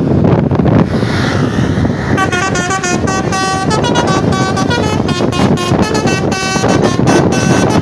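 A bus's basuri telolet horn, a multi-tone musical air horn, playing a fast melody of short stepped notes. It starts about two seconds in, over loud wind and traffic noise.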